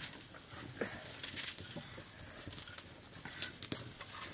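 Leafy greens picked over by hand on a woven plastic sack: soft rustling of leaves and sack with scattered small snaps and ticks as stems are broken.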